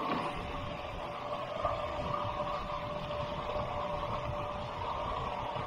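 ePropulsion electric outboard motor running at full throttle, a quiet, steady whine at one pitch over an even rush of noise.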